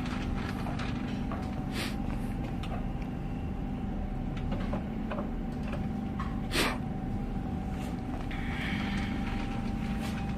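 Steel parts of a chalk-making machine knocking and clanking now and then as they are handled and fitted together, over a steady hum. The loudest knock comes about two-thirds of the way through.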